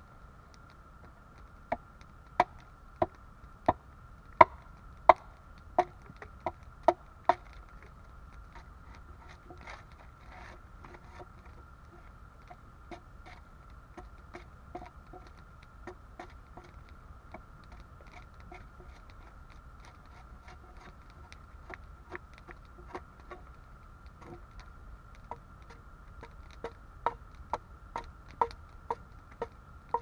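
Hatchet blows into an upright log, splitting it lengthwise: a quick run of about ten sharp chops a few seconds in, lighter taps in the middle, and another run of chops near the end.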